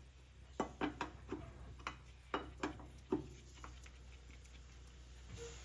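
A ratchet and socket working on a golf cart's wheel lug nuts: about ten sharp, irregularly spaced clicks and light knocks over a few seconds, then they stop.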